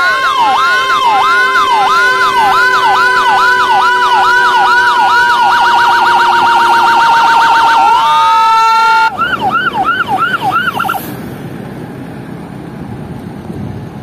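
Whelen 295SDA1 dual-tone 200-watt siren through an SA314 speaker, sounding two tones at once: a slow wail near one pitch with a yelp sweeping about twice a second over it. About five seconds in, the yelp quickens to a rapid warble. After about nine seconds a single, quieter yelp sounds, then cuts off about eleven seconds in, leaving faint road noise.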